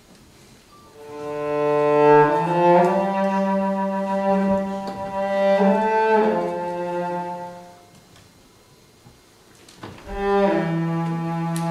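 Slow live music: bowed cello and saxophone holding long notes that step from pitch to pitch. The notes stop for about two seconds after the middle, a single light knock sounds, and the held notes start again.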